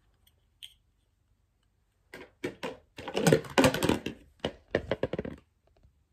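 Lego bricks clattering against one another and a plastic bin: a quick, dense run of hard plastic clicks that starts about two seconds in and stops about three seconds later.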